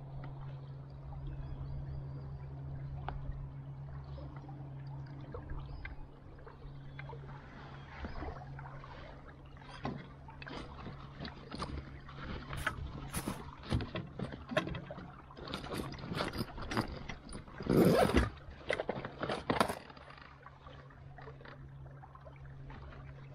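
Aluminium canoe under way with a steady low electric hum from its trolling motor. From about twelve seconds in, a run of knocks and splashy clatter against the metal hull builds up, loudest around eighteen seconds, then the hum carries on alone.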